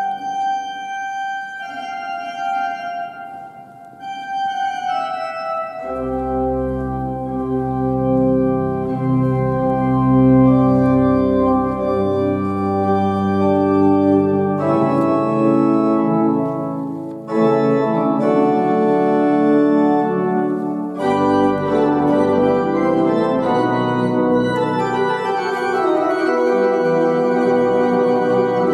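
Old church pipe organ being played, holding sustained chords that change every few seconds; deep bass notes join about six seconds in.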